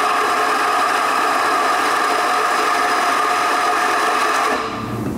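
Macap M42D espresso grinder running steadily as it grinds coffee into a portafilter, cutting off about four and a half seconds in.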